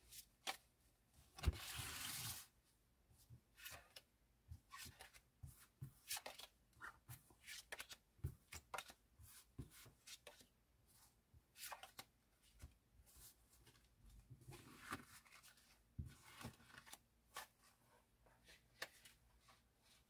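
Tarot cards being handled and spread out on a felt cloth: faint slides, rustles and soft taps, with a longer rustle about a second and a half in.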